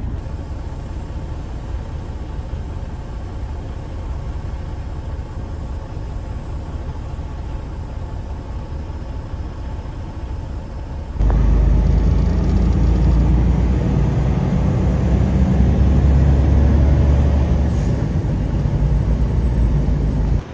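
Semi truck's diesel engine running, heard from inside the cab as a steady low hum. About eleven seconds in it jumps to a much louder low rumble as the truck drives on the road, with a faint whine slowly rising in pitch.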